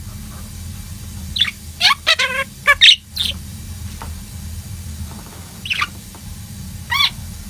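Budgerigars chirping and warbling in short calls, a quick cluster between about one and three seconds in and two more single calls later, over a steady low hum.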